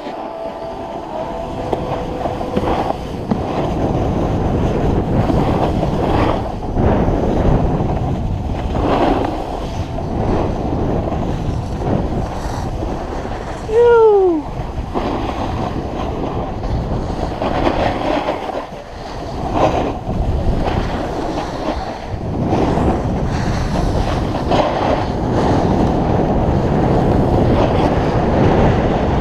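Snowboard sliding and carving down a groomed slope: a continuous rough scraping hiss of the board on the snow, swelling and easing with the turns, mixed with wind buffeting the camera microphone. About halfway through, a short tone falls in pitch and stands out as the loudest moment.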